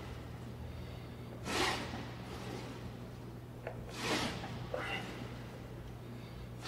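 A man exhaling hard twice, about two and a half seconds apart, with a smaller breath just after the second, as he strains through calf raises on a leg press; a steady low hum runs underneath.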